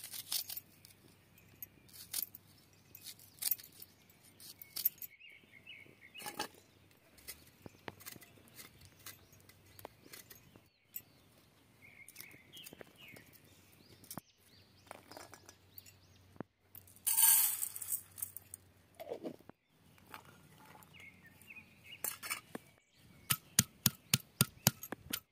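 Dry onion and garlic skins being peeled and snapped off by hand, with scattered small crackles and clicks and one brief louder rustle. Near the end a hand stone pounds garlic on a stone grinding slab: a quick run of sharp knocks, about four or five a second.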